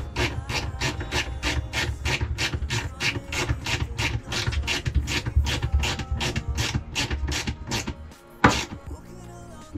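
Ratcheting hand driver clicking in a quick, even rhythm, about four to five clicks a second, as it turns a fastener. The clicking stops about eight seconds in, followed by one sharp knock.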